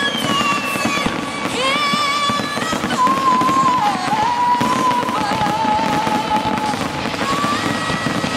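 A fireworks display, with a continuous dense crackle of bursts. Several high whistling tones waver and glide over it.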